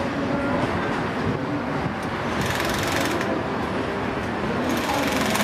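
Track-laying machinery runs with a steady fast rattle. Twice, about two seconds in and again near the end, a power wrench driving rail fastening bolts into the concrete sleepers cuts in with a brief hammering burst.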